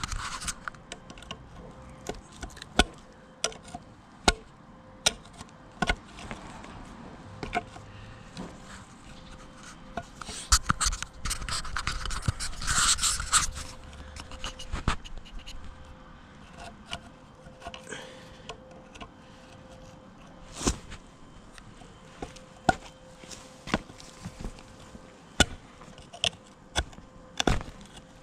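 Irregular sharp knocks and clicks with some scraping, busiest in a rougher scraping stretch about ten seconds in, over a faint steady hum.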